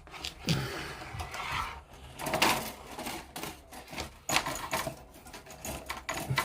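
Plastic model-kit parts and sprues being handled and moved about on a workbench: irregular rustling with clicks and clatter.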